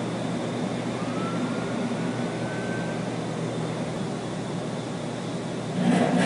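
Steady mechanical running noise from refrigerated container units, with a faint rising whistle about a second in and a brief louder burst near the end.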